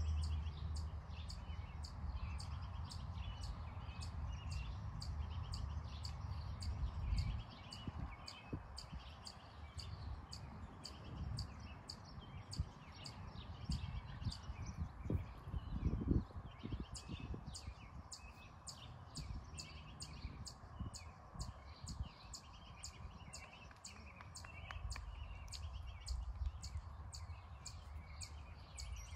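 Outdoor ambience of birds chirping, with a high chirp repeating about twice a second, over wind rumbling on the microphone, strongest in the first seven seconds and again near the end.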